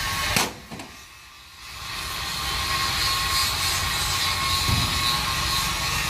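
A sharp knock, then about two seconds in a steady machine noise starts up and holds, with a constant whine in it.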